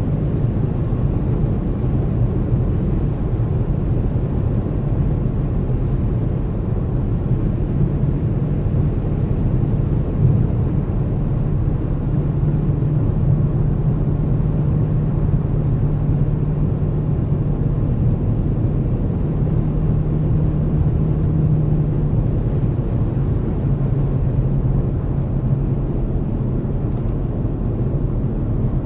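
2014 Dodge Charger Pursuit driving, a steady low drone of road and engine noise with a low hum that grows stronger through the middle.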